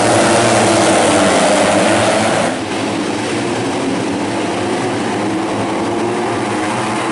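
Several tuned four-stroke underbone racing motorcycles running hard together, their engine notes overlapping at different pitches that rise and fall as they rev. The level dips briefly about two and a half seconds in.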